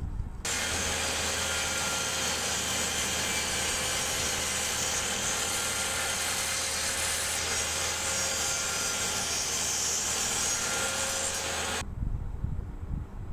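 Bench-mounted power saw running steadily while cutting through a wooden block, with a constant motor hum and whine; the sound starts and stops abruptly.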